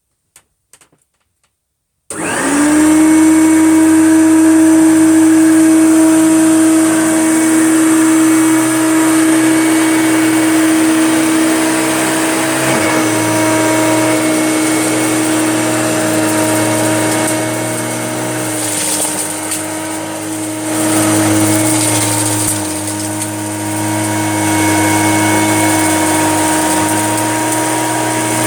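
Hoover Junior upright vacuum cleaner switched on about two seconds in, its motor quickly coming up to a steady whine. It then runs on while being worked through piles of dog hair and dirt, its pitch and level dipping a few times.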